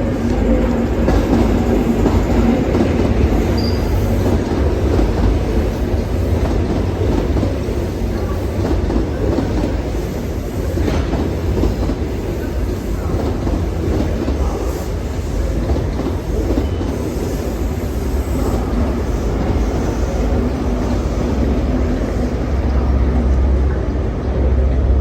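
A train running past on the line, a continuous loud rumble of wheels on rail.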